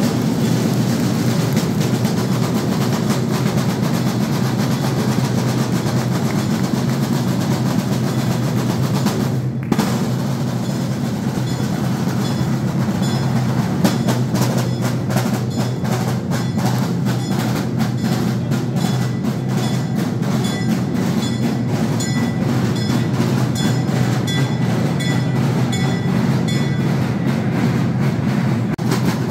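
Processional side drums beaten with sticks in a fast, steady rhythm, with a short break about ten seconds in.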